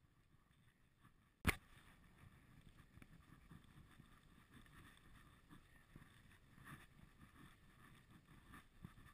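Faint wind and road noise from a moving bicycle, with a single sharp click about a second and a half in.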